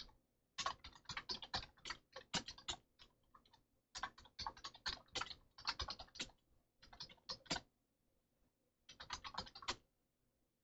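Faint typing on a computer keyboard: quick runs of keystrokes in three bursts, with short pauses between them.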